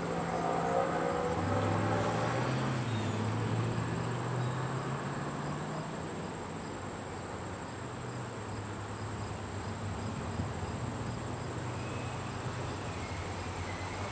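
Crickets chirring in a steady high drone over a low diesel engine hum that wavers in pitch and dips slightly in the middle.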